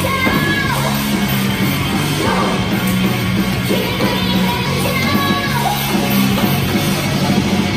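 Loud rock-style music with singing, playing steadily.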